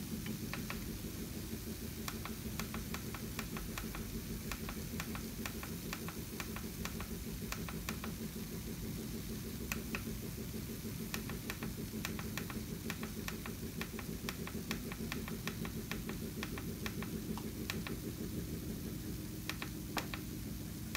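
Irregular light ticking and crackling from a stainless steel pan of salmon and vegetables as it heats, over a steady low hum.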